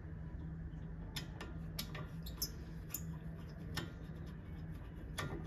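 Light metallic clicks and taps, irregularly spaced, as loosened brake-disc retaining screws are backed out with a screwdriver and lifted out, over a low steady hum.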